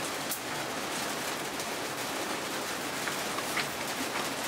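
Machinery running with a steady, even noise and a few light clicks, its oil pressure gauge holding up around 1100 kPa.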